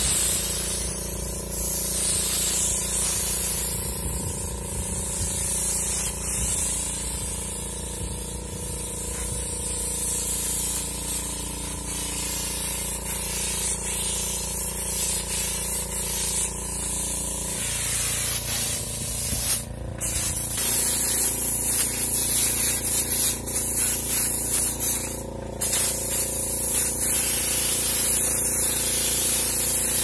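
Siphon-cup compressed-air spray gun hissing steadily as it sprays primer, with the steady hum of a small air compressor under it. The hum changes pitch about two-thirds of the way through, and the spray breaks off briefly twice in the second half.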